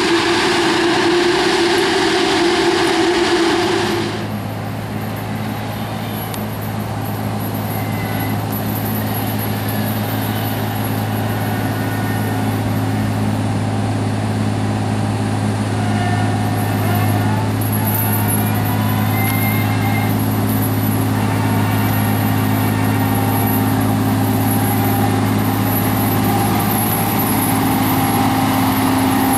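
Heavy farm machinery running during wheat harvest: a loud, noisy machine sound that cuts off abruptly about four seconds in, then a steady low engine hum with a faint whine above it.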